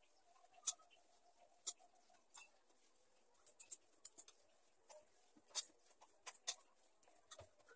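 Hands kneading pearl millet dough in a steel plate: about a dozen faint, irregular sharp clicks and taps as the hands knock and scrape against the metal plate.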